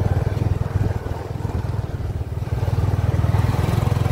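Motorcycle engine running as the bike rides along, heard from on the bike as a steady low pulsing of its firing. It eases slightly about a second in and builds back up later.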